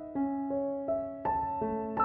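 Background music: a slow keyboard melody of single notes, about two or three a second, each note struck and fading.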